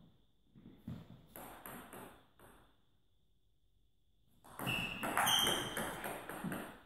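Table tennis ball clicking back and forth off rackets and table in a rally: a run of quick clicks, a short lull, then a louder, busier stretch of hits with short squeaks, likely shoes on the hall floor, about five seconds in.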